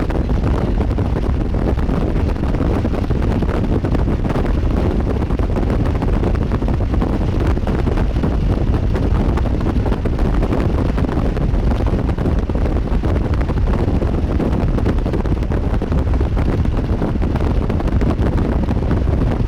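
Strong storm wind buffeting the camera's microphone in a loud, steady rumble.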